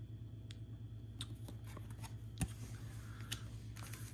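Faint handling of trading cards: a few light clicks and taps as cards are shuffled and set down on a wooden table, over a low steady hum.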